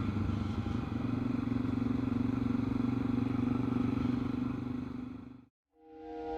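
BMW F650 ST motorcycle's single-cylinder engine running at a steady pitch, fading out about five seconds in.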